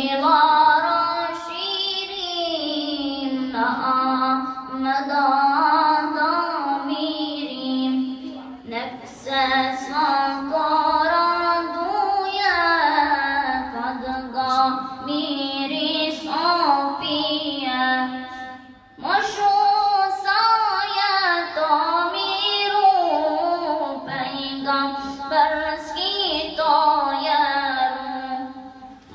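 A boy's solo unaccompanied voice singing a Bosnian ilahija (Islamic devotional song), melismatic, with long held notes ornamented by gliding turns. A short break for breath comes about 18 seconds in.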